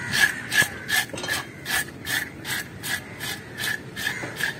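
Knife blade scraping scales off the skin of a large barrier trevally in rhythmic rasping strokes, about two and a half a second.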